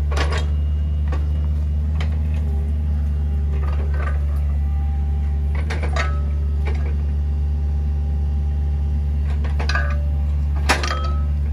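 Mini excavator's diesel engine running steadily under the hydraulics, with a few sharp metallic knocks from the swinging pile-driver attachment, the loudest near the end.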